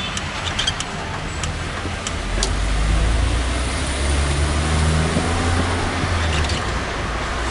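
Taxi's engine and road noise heard from inside the car's cabin, the engine hum growing louder from about two seconds in as the car pulls along, with a few light clicks in the first two seconds.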